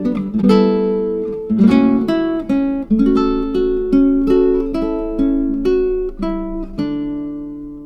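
Background music on acoustic guitar: plucked notes in a gentle pattern, ending on a final chord about seven seconds in that rings and fades away.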